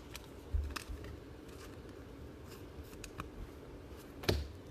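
Sports trading cards being handled: scattered light clicks and taps of cardboard cards sliding against each other and being set down, with a sharper tap near the end.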